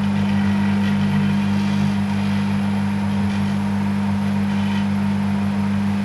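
Microwave oven running with its steady electrical hum while the metal spring of a wooden clothes peg arcs inside, adding bursts of crackling several times.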